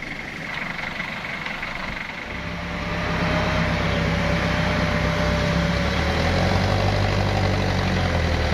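Pickup truck engine revving up about two seconds in and then held at high revs under heavy load, straining to pull a vehicle stuck on a muddy slope.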